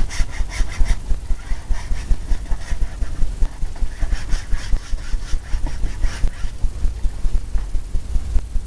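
Paintbrush scrubbing paint onto a stretched canvas in quick back-and-forth strokes, about three a second. The strokes die away about two-thirds of the way through.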